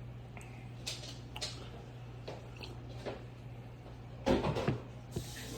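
Scattered light knocks and clicks of things being handled over a steady low hum, with a louder clatter about four seconds in and a hiss starting near the end.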